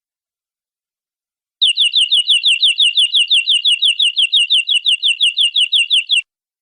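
Domestic canary singing one long fast trill of identical, quickly falling whistled notes, about eight a second. It starts about a second and a half in and stops shortly before the end.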